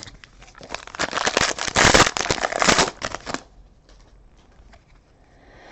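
Trading-card pack wrapper being torn open and crinkled: a dense crackling rustle lasting about two seconds, with light clicks of cards being handled before and after it.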